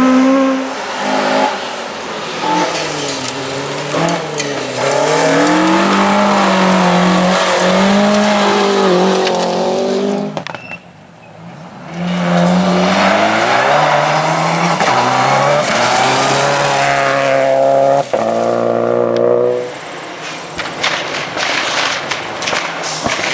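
Classic rally car engines revving hard, their pitch climbing and dropping over and over through gear changes. There is a brief quiet gap about eleven seconds in, then the revs climb again.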